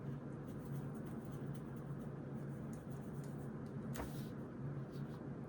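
Writing on paper in a notebook: faint scratching strokes. A steady low hum runs underneath, and there is a single sharp tap about four seconds in.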